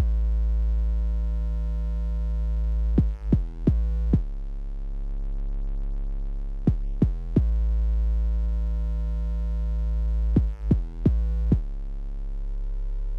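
Electronic background music: sustained low synthesizer tones with deep bass, broken about every three and a half seconds by a few quick falling synth swoops.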